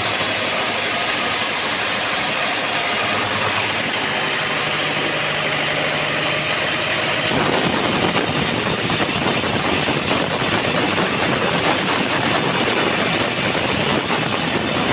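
Homemade bandsaw sawmill running steadily. About halfway through, the sound changes abruptly to a rougher, noisier running.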